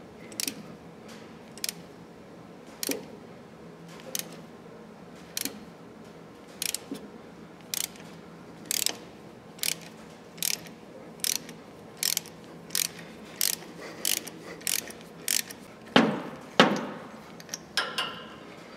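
Ratchet wrench on a spark plug socket clicking as a spark plug is backed out of an Oliver 770 tractor engine. The single clicks speed up from about one a second to about two a second. Two louder clicks with ringing come near the end.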